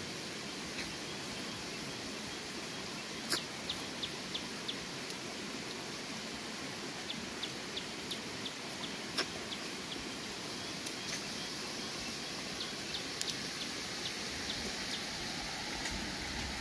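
Steady rushing of a shallow rocky stream, with runs of short, high bird chirps, four or five at a time, a few times over. A couple of sharp clicks stand out, the loudest about three seconds in.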